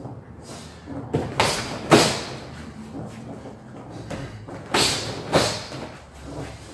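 Karate jab-and-kick combination practised on a partner: sharp slapping thuds of strikes landing and feet stepping on mats, in two pairs about half a second apart, one pair a second and a half in and the other near five seconds.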